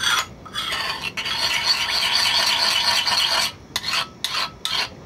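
Metal spoon stirring an oily garlic-and-paprika marinade in a ceramic bowl, scraping against the bowl: continuous stirring for about three seconds, then a few separate short strokes near the end.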